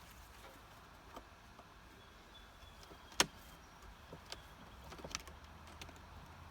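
Wooden beehive boxes and frames being handled: a few light clicks and taps, with one sharper knock about three seconds in.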